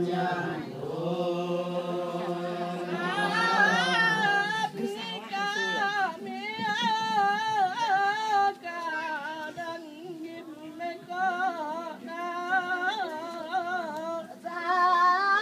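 Unaccompanied singing in a chant-like melody: a low held line for the first few seconds, then higher, long notes that waver and turn.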